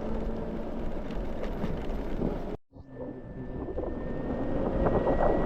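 Wind rushing over the microphone with road noise while riding an electric scooter. About two and a half seconds in it cuts off abruptly, and a different steady noise with a faint high whine builds in its place.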